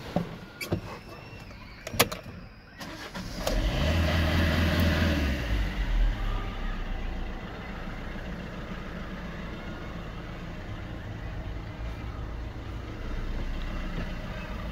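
Vauxhall Combo van's engine started from cold: a few clicks, then the engine cranks and catches about three and a half seconds in, revs up briefly and settles into a steady idle.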